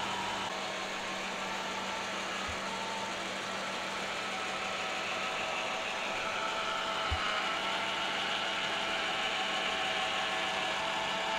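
Homemade plastic filament extruder and filament puller running: a steady electric motor whir and hum, with a soft knock about seven seconds in.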